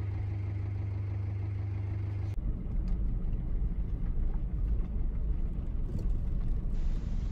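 A car engine idling with a steady low hum. About two and a half seconds in, this gives way to the uneven low rumble of the car driving slowly on a gravel forest track, heard from inside the cabin, with a few light knocks and rattles.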